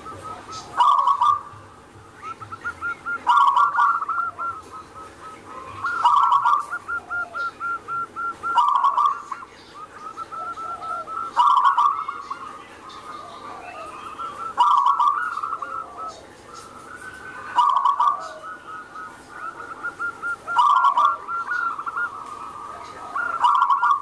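Zebra dove (perkutut) cooing in its repeated song. About every three seconds comes a loud phrase, followed by a quick run of short, evenly spaced coo notes.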